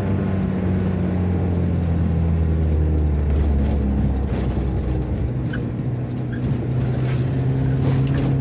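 Mazda MR sedan's engine running on the road: its note sinks over the first few seconds, then holds at a steady, slightly higher note from about halfway on.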